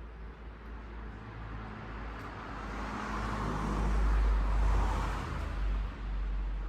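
A road vehicle passing by: a low rumble with tyre and engine noise that swells to a peak about four to five seconds in, then fades.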